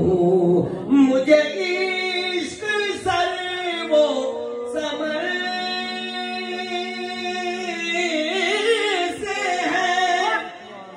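A man singing a naat unaccompanied into a microphone, drawing out long, held, ornamented notes.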